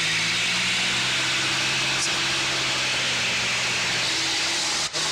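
Steady hiss with a low hum underneath, cutting out for an instant near the end.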